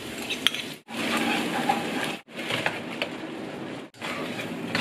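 Frying in a wok: oil sizzling and a spatula scraping and tapping the pan, with a few sharp clicks. The sound comes in short stretches, each cut off abruptly by a brief drop to silence.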